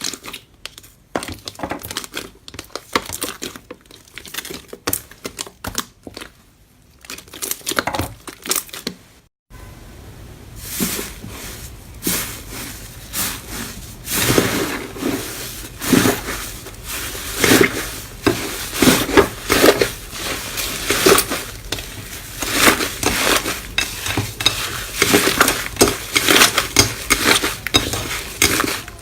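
Slime being squished and poked by hand, making sticky crackling and clicking sounds. Sparse clicks at first, then after a short break denser, louder crackling.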